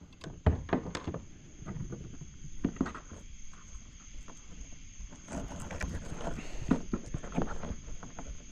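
Irregular knocks, taps and rustling of fishing gear being handled in a kayak as a fresh bait is put on the hook.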